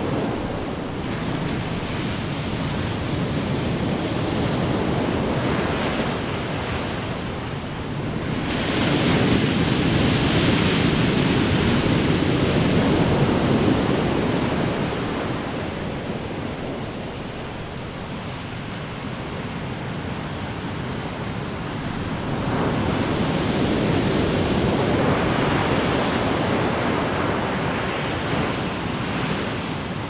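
Ocean surf with waves breaking on the shore, a continuous rushing hiss. Two big waves crash, one about a third of the way in and one about three-quarters of the way in, and each washes out over several seconds.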